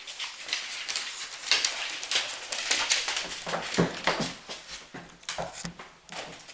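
Australian labradoodle puppy and cat scuffling at play, a quick run of scratchy rustles and taps on a wooden floor, busiest around the middle and easing off near the end.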